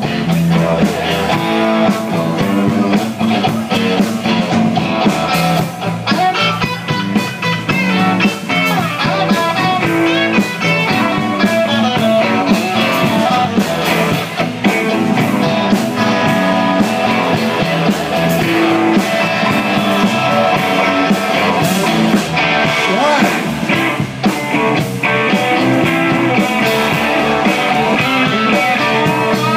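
Live blues band playing an instrumental break between sung verses, with guitar prominent over bass and drums.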